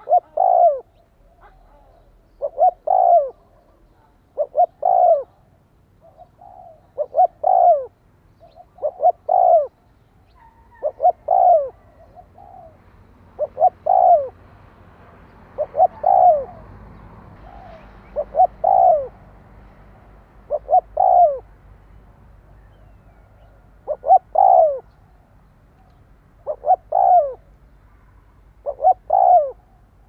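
Spotted dove cooing: short arching coos, often two in quick succession, repeated about every two seconds. This is the rapid 'thúc' call used to draw wild doves.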